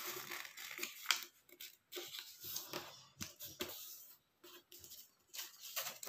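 Square of origami paper being folded and creased by hand: soft, scattered rustles and crinkles of the paper, with a few sharper crackles as the folds are pressed.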